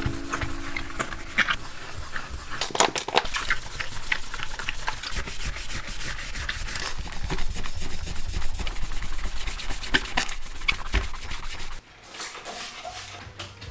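A sponge in a rubber-gloved hand scrubbing a speckled stone countertop in short, repeated rubbing strokes, working off grime that has been left to soak. The scrubbing stops near the end.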